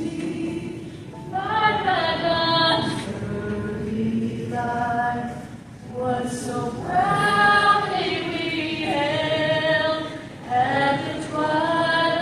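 A choir singing a slow song in long held phrases, with short breaks between them.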